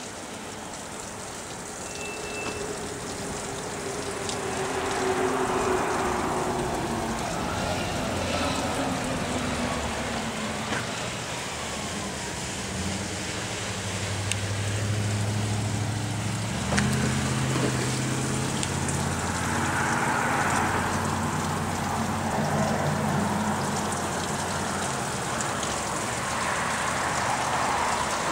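Road traffic: vehicles passing, their noise swelling and fading a few times, with a low engine hum through the middle stretch.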